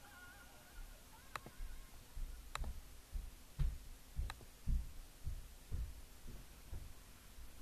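A few sharp single clicks of a computer mouse, spaced a second or more apart, over soft low thumps about twice a second. Faint music trails off at the very start.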